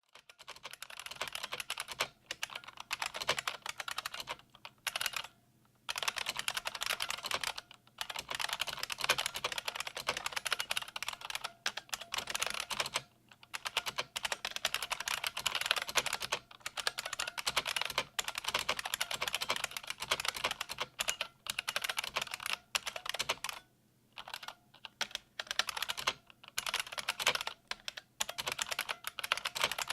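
Typing on a restored 1988 IBM Model M122 terminal keyboard: its buckling-spring keys clicking in fast runs broken by short pauses.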